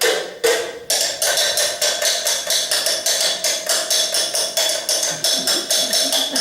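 Drinking glasses and cutlery struck in a rhythm: two slower knocks, then from about a second in a brisk, even run of clinks, about four a second, with a ringing tone sustained between the strikes.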